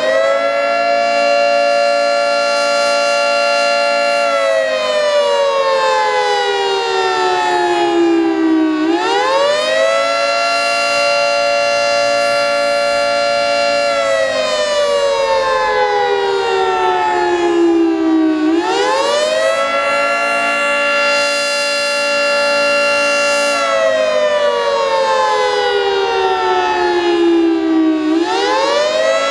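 Federal Signal 3T22 three-tone outdoor warning siren sounding the attack signal. Its chord-like wail climbs quickly, holds for a few seconds, then slowly falls, repeating about every nine and a half seconds. Three full cycles are heard, with a fresh climb starting near the end.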